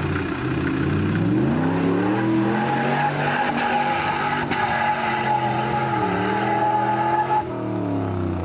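Modified off-road 4x4's engine revving hard under load in mud: the revs climb over the first two seconds, hold high with a brief dip about six seconds in, then drop away near the end. A steady high whine rides over the engine while it is on the throttle.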